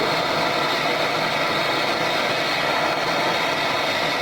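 Brazing torch flame hissing steadily as it heats an aluminium refrigerator evaporator for an aluplatinum rod patch; the borax flux has not yet melted, so the metal is still coming up to brazing heat.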